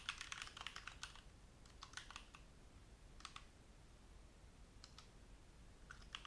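Faint computer keyboard typing: a quick run of keystrokes in the first second, then short clusters of a few keys every second or so.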